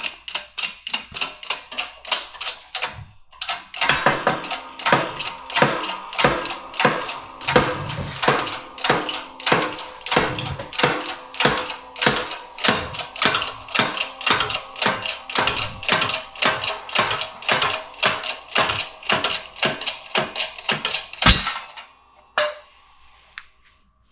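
Repeated hammer blows on a drift, driving a stuck steel wheel bearing out of an aluminium ATV rear knuckle: sharp metallic strikes with a ringing tone, about three a second. They pause briefly about three seconds in and stop after a harder final blow near the end.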